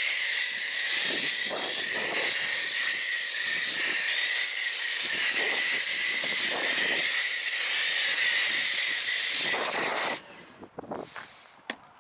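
Autoglym Polar Blaster snow foam lance on a pressure washer, spraying foam with a steady, high hiss that cuts off suddenly about ten seconds in. A few faint clicks follow.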